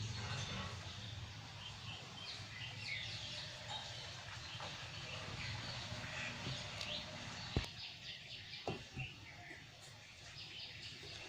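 Birds chirping in the background over a low steady hum, with a few sharp knocks in the second half.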